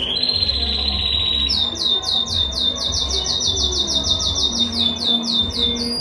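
Spanish Timbrado canary singing. It opens with a high rolling trill held on one pitch for about a second and a half, then switches to a fast run of repeated falling notes, about seven a second, which stops just before the end.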